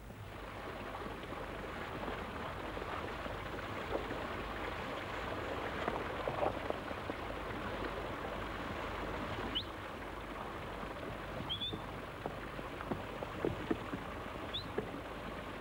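Steady rushing hiss of water running, with a few light knocks and three short rising high chirps in the second half.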